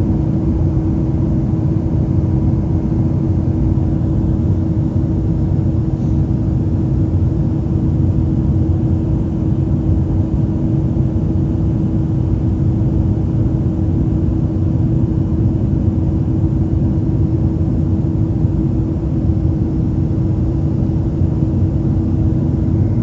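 Steady cabin drone of an airliner in flight: engine and airflow noise, a low rumble with a steady hum through it.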